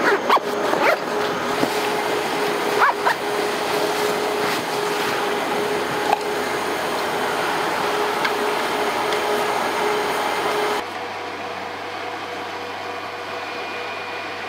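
Small cooling fans of an AIRGEAR fan-cooled jacket running with a steady whir and a held hum, with a few clicks and rustles of hands on the jacket in the first three seconds. About eleven seconds in the whir drops suddenly to a quieter level.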